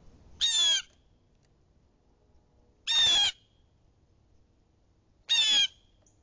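Blue jay squawking: three loud, harsh calls, each short, spaced about two and a half seconds apart.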